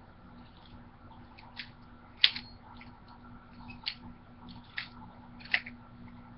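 Butterfly knife (balisong) being flipped open and closed slowly by hand: its handles and blade click against each other. There are about five sharp clicks roughly a second apart, the loudest about two seconds in.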